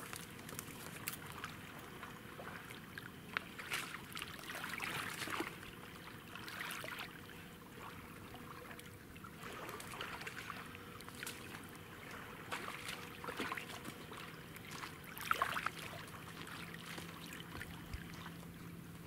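Rubber boots stepping through shallow water and mud at the river's edge, with scattered light splashes and water trickling.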